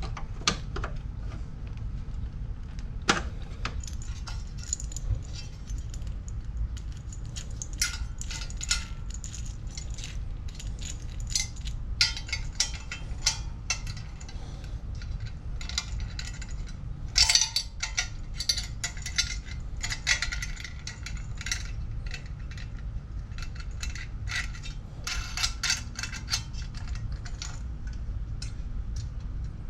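Small metal parts and hand tools clinking and rattling as they are handled, many short irregular clicks and jingles over a steady low rumble.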